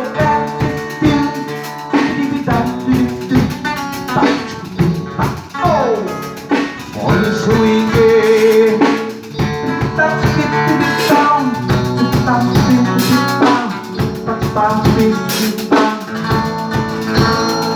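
Instrumental passage of a song with no vocals: drum kit with snare and rimshot hits under pitched instruments, with a falling glide of notes about five seconds in.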